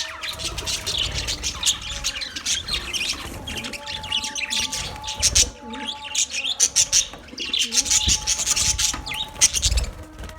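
A colony of budgerigars chirping and chattering in many overlapping short calls.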